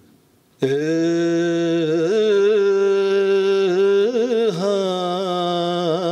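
A man's voice sings the opening of an Urdu naat, a devotional poem in praise of the Prophet, starting a little over half a second in. He holds a long, drawn-out note and ornaments it with small wavering turns.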